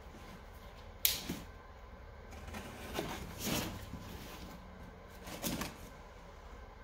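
Cardboard box being opened by hand: a sharp click about a second in, then a few short bouts of scraping and rustling as the packing tape and cardboard flaps are worked open.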